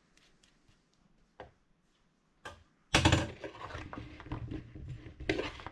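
Metal spoon stirring seasoned cauliflower florets in a bowl, scraping and clinking irregularly, starting about three seconds in after a quiet stretch with a couple of light taps.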